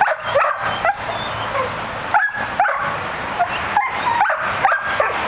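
Dog yipping and whining during play: a string of short, high calls, many sweeping upward in pitch, repeating every half second or so.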